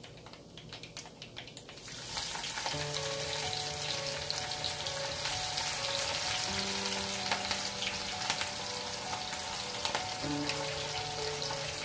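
Sliced onions going into hot oil with cumin and mustard seeds in a kadai, setting off loud, steady sizzling about two seconds in. Soft background music with held notes plays under it.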